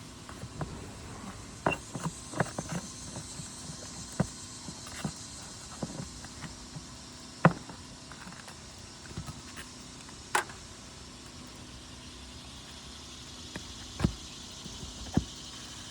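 Irregular clicks and knocks, a dozen or so scattered through, over a faint low hum.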